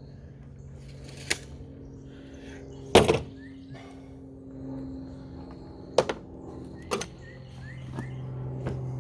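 Sharp knocks and clacks of PVC pipe pieces being handled and set down, five in all, the loudest a quick double knock about three seconds in, over a steady low hum.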